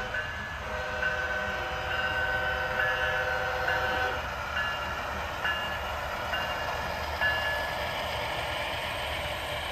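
HO scale model diesel locomotive's horn, played through its onboard speaker: one long blast lasting about four seconds, then four short toots about a second apart. Under the later toots the model train's wheels and motor rumble grows as it rolls closer on the track.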